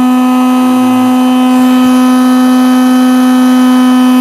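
Small handheld power tool's electric motor running flat out at a steady speed with a constant whine, drawing power from a lithium power station's pure sine wave inverter as a test load.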